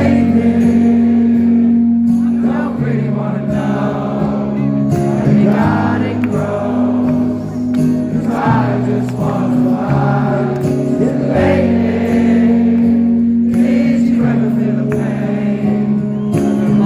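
Live rock band playing at full volume, with sung vocals over held guitar and bass notes, as heard from the audience at a concert.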